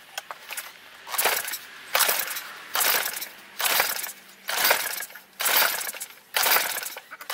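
Lawn mower engine's recoil starter being pulled over and over, about once a second, eight rasping pulls in a row as the engine turns over; it does not catch and run.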